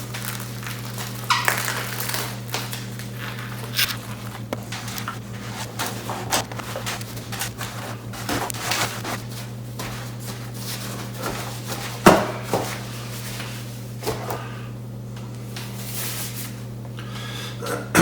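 Food-prep handling sounds in a kitchen: scattered clicks, knocks and rustles, with a sharper knock about 12 seconds in, over a steady low hum.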